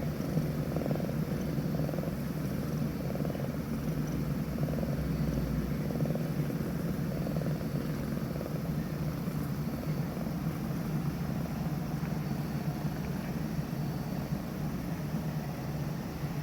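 A sleeping Scottish Fold kitten's breathing: a steady low rumble that swells gently about every second or so with each breath.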